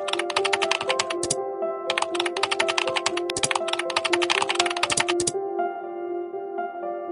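Rapid computer-keyboard typing clicks in two runs, the first about a second long and the second about three and a half seconds, over soft ambient background music.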